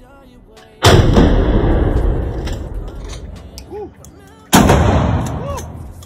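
Two shotgun shots about four seconds apart, each followed by a long reverberating tail off the walls of the indoor range.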